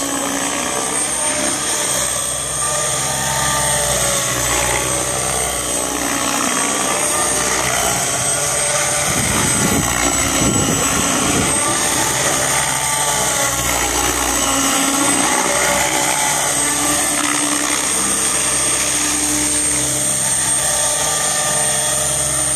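RJX 700-size radio-controlled helicopter flying: a continuous rotor whir with a steady high whine, its pitch rising and falling as it manoeuvres, with a stretch of low buffeting about nine seconds in. A blade damaged in a crash gives a small extra noise and a slight oscillation.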